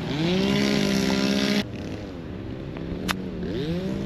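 Golf cart running, its motor whine dipping and rising in pitch as the cart slows and speeds up. The sound drops off abruptly about one and a half seconds in, and there is a single sharp click a little after the third second.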